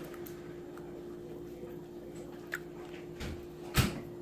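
Slime being handled and mixed: soft squishing and small clicks over a steady hum, with a sharp knock near the end.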